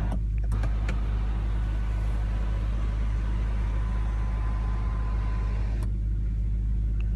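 Power sunroof sunshade motor running for about five seconds with a faint steady whine, stopping abruptly with a click, over a steady low hum.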